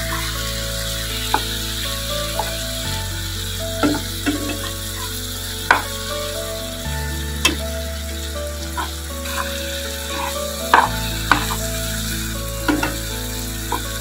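Chicken pieces and thick spice paste sizzling as they fry in a pan during the bhuna (dry-frying) stage. A metal spatula stirs them, with a sharp scrape or knock against the pan every second or two.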